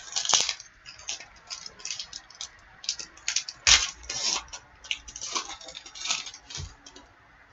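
Trading card pack wrapper being torn open and crinkled, with the cards handled: quick irregular rustles and a few sharper clicks, fading out near the end.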